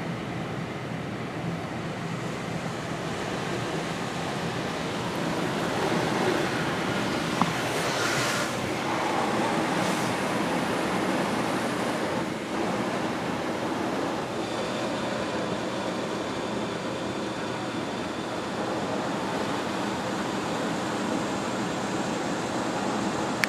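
Water spray from a Belanger Kondor automatic car wash hitting the car in a steady rush, during the soak pass. About two-thirds of the way through, a high steady whine joins the spray.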